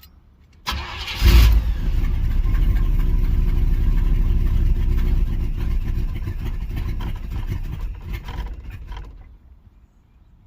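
Carbureted 305 H.O. small-block Chevy V8 cold-started after one pump of the gas pedal. The starter cranks briefly and the engine catches about a second in, runs for several seconds, then fades and stalls near the end. The engine won't stay running unless the throttle is held open.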